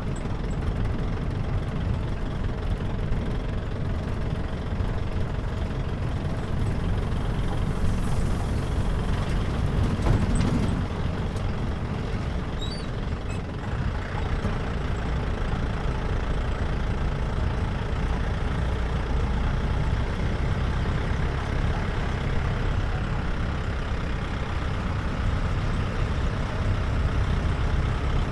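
Jeep driving on the road, its engine running steadily under a constant low rumble of tyres and road noise, with a brief louder swell about ten seconds in.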